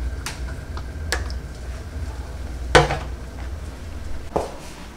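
Glass pump bottle of dish soap set down on a stainless-steel sink ledge: a few light knocks and clinks, the loudest a little under three seconds in, over a low hum.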